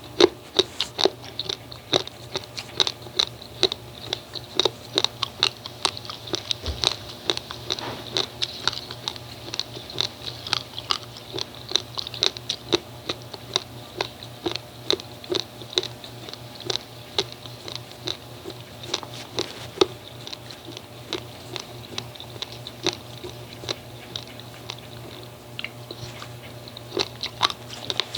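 Uncooked basmati rice grains being bitten and chewed, a rapid, irregular crunching of many sharp little cracks, several a second.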